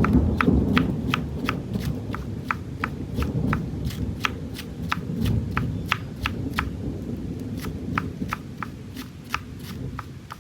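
Knife chopping winged beans finely on a cutting board: steady, even taps about three a second, over a low rumble.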